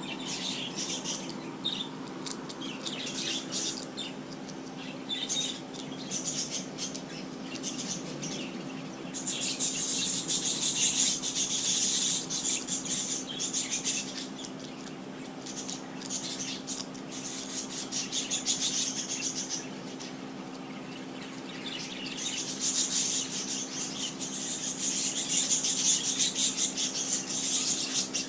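Small birds chirping busily in overlapping, rapid high chirps that swell in bouts, loudest near the middle and near the end. A steady low hum runs underneath.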